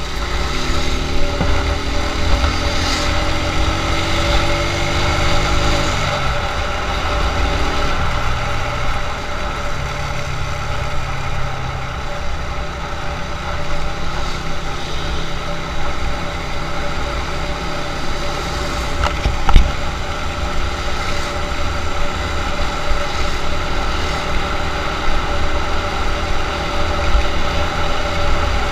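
Motorcycle engine running while riding, its pitch rising through the first few seconds as it gathers speed, then holding steady. A single sharp thump about two-thirds of the way through.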